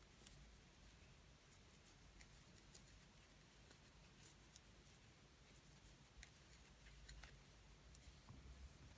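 Near silence: faint, scattered soft ticks and rustles of a crochet hook and yarn as stitches are worked by hand.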